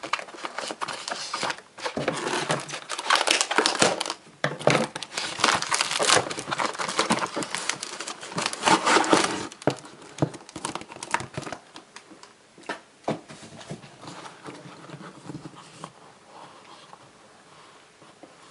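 Clear plastic air-column cushion packaging crinkling and crackling as hands work the phone box out of it. About two-thirds of the way in the crinkling stops, leaving a few quieter taps and scrapes of the cardboard box being set down and handled on a table.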